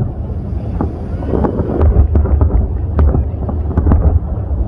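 Aerial firework shells bursting in quick succession, a dense run of sharp bangs and crackles over a steady low rumble. Wind buffets the microphone.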